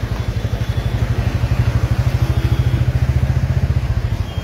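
Motorcycle engine running steadily under way, with a fast, even throb.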